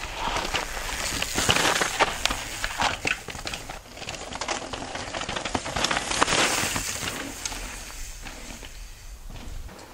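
Mountain bike tyres rolling and sliding over loose, dry dirt and gravel as riders pass close by. It swells louder twice, around two seconds in and again around six seconds, with many small clicks and rattles.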